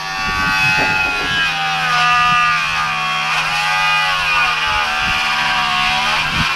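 Power saw cutting lumber, its motor whine sagging in pitch under load around the middle of the cut and then recovering. A steady low hum runs underneath.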